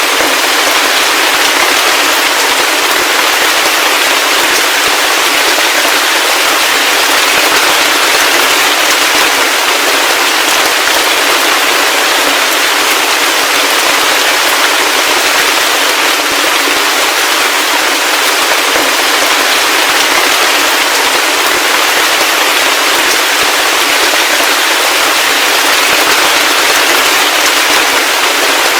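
Heavy rain falling steadily: a dense, even hiss of raindrops with a fine crackling patter and no low rumble.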